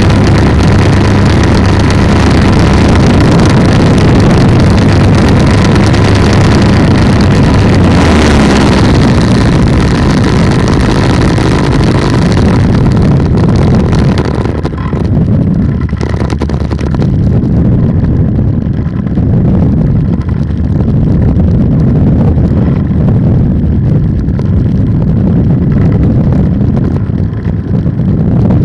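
Polini 190 single-cylinder two-stroke engine of an ATF ultralight trike running steadily, loud and droning, mixed with rushing wind on the microphone. About halfway through, the sound turns duller and slightly quieter.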